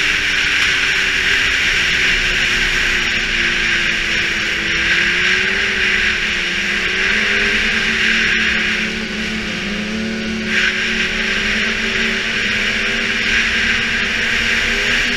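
Snowmobile engine running steadily at riding speed, with a strong rushing hiss of wind and track over it. The hiss eases briefly about nine seconds in, then comes back.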